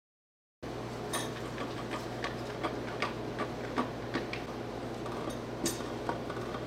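Light, irregular metal taps, a few a second, over a steady low hum: tapping a piston and connecting rod out of its cylinder bore during an engine teardown. The taps start suddenly after a moment of dead silence at the very start.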